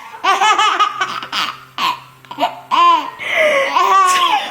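A baby laughing in several high-pitched bursts.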